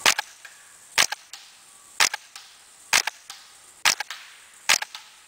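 Smith & Wesson M&P15-22 .22 LR rifle firing subsonic rounds through a SilencerCo Sparrow suppressor. There are six shots at about one a second, each a sharp crack followed closely by a fainter click.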